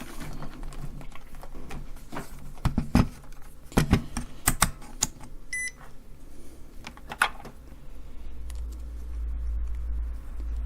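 Clicks and knocks of a digital multimeter and its test leads being handled and switched on, with one short electronic beep from the meter about five and a half seconds in. A low hum rises from about eight seconds in.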